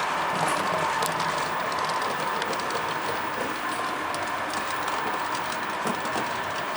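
Model trains running on a model railway layout: a steady hum with scattered light ticking.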